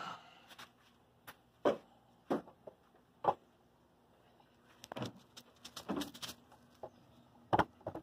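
Scattered short knocks, taps and rustles from someone handling things and moving about a car body, about eight separate sounds with quiet gaps between them.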